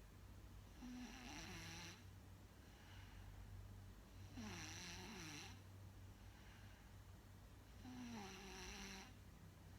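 Faint snoring: three snores about three and a half seconds apart, each about a second long, breathy with a wavering pitched tone.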